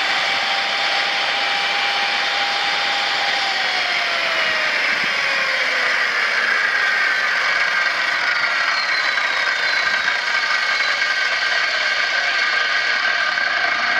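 Rockwell Model 315 7-1/4 inch corded circular saw motor whining at full speed, then coasting down slowly after the trigger is released, its whine falling in pitch for about ten seconds. The long spin-down comes from having no brake.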